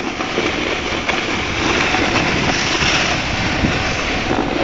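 Steady rushing scrape of skis and a snowboard sliding over hard, tracked snow, mixed with wind on the microphone.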